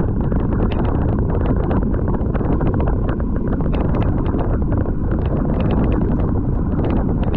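Heavy wind buffeting the microphone, with rapid, irregular rattling clicks throughout.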